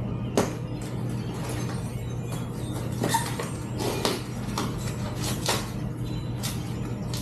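Packing material being pulled and handled off a new bike: scattered clicks, snaps and rustles, a sharp click just under half a second in, over a steady low hum.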